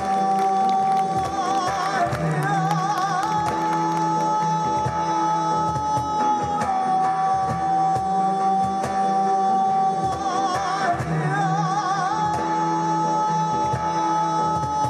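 Music: a long held melody line that wavers in pitch, over a steady low beat.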